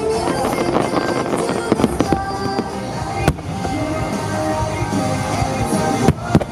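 Fireworks bursting over music from loudspeakers: sharp bangs and crackles scattered through, one clear bang about three seconds in and a few more near the end, with the music playing throughout.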